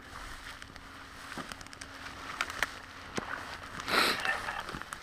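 Footsteps and bodies pushing through tall dry grass: stems rustling and crackling, with scattered snaps and a louder swish about four seconds in.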